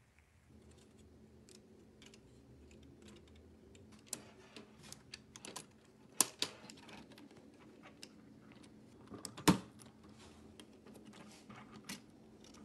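Hard 3D-printed plastic model parts being handled and pressed together by hand: scattered light clicks and taps, with two louder snaps, one near the middle and one about three quarters of the way through.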